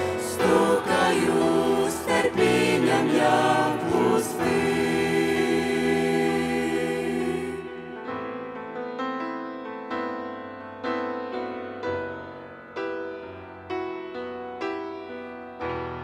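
Mixed vocal group singing a Ukrainian hymn with piano accompaniment; about halfway through the voices stop and the piano plays on alone, one chord at a time, each dying away.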